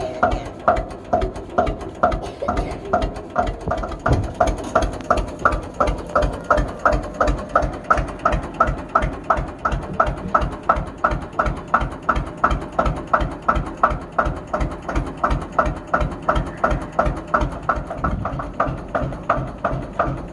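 Lanz Bulldog tractor's single-cylinder hot-bulb engine running with a slow, even beat, about two to three firing strokes a second.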